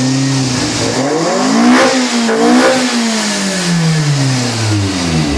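Toyota 4A-GE twin-cam four-cylinder engine running and being revved: the pitch climbs to two quick peaks about two and three seconds in, then falls steadily as the revs drop back.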